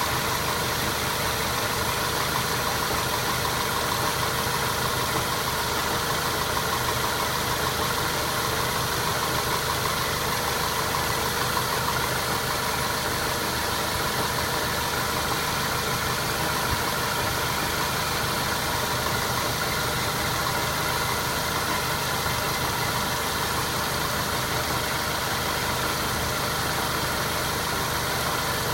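Mazda 3 running steadily, a constant mechanical noise with several fixed tones from the car and its automatic transmission. The owner describes the fault as a knock in the automatic gearbox that comes on overrun and goes away under throttle.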